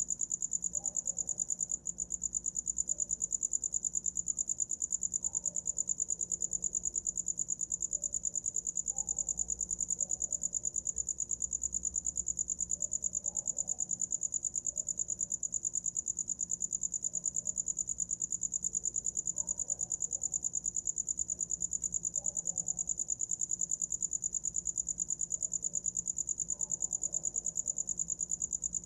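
A cricket chirping without a break: one steady, high-pitched trill of fast, even pulses.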